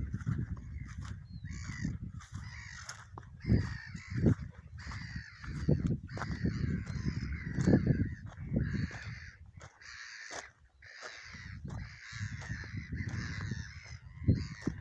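Gulls calling over and over, short harsh cries following one another almost without pause, with wind buffeting the microphone underneath.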